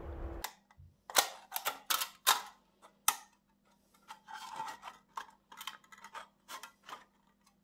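Kitchen scissors cutting through the thin aluminium wall of an empty drinks can: a run of sharp, irregular snips with faint crinkling of the metal between them.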